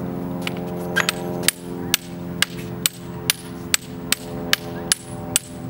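A 2.5-pound steel ball bounced over and over off the head of a 4-pound sledgehammer: sharp metallic clinks with a brief ring, about two a second, starting about a second in. A steady low hum runs underneath.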